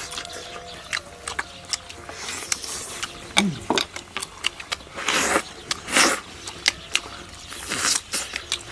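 Close-up eating sounds of a man gnawing a big braised bone: wet lip smacks and clicks, with loud slurps as he sucks meat and juice off it, about five and six seconds in and again near the end.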